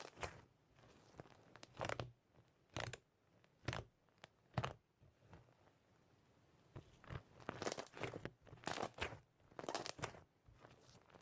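A series of short, crisp crunches at irregular intervals, about a dozen, with a quieter pause midway, typical of crunchy ASMR audio.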